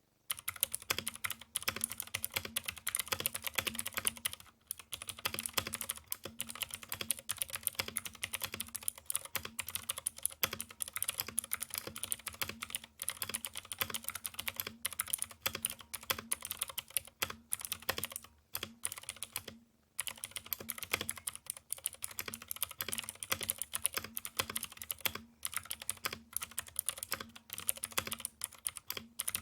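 Fast continuous typing on a mechanical keyboard with Outemu Teal clicky switches, a Cherry MX Green clone: a dense stream of sharp high-pitched clicks with a slightly muted, rattly sound, broken by brief pauses. A faint steady hum runs underneath.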